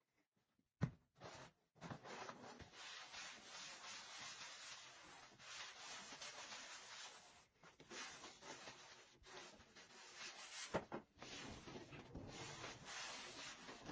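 Faint rubbing and scrubbing of a cloth wiped by hand along a baseboard and floor, going on steadily with uneven strokes. There is a short knock about a second in and another sharp knock near the end.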